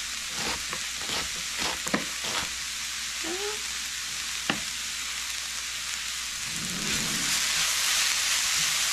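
Food frying in oil in a pan, a steady sizzle, with a few knife cuts on a cutting board in the first couple of seconds and one sharp click about four and a half seconds in. The sizzle grows louder about seven seconds in.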